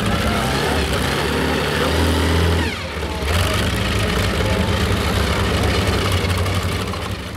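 Twin Hemi engines of a modified pulling tractor idling at the end of a pull. They dip briefly with a falling note about three seconds in, then run steadily and fade out near the end.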